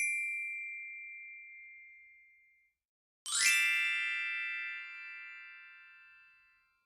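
Cartoon sound effects. A high, bell-like ringing tone fades out, then about three seconds in a single struck chime starts with a quick upward sweep and rings out slowly, fading over several seconds.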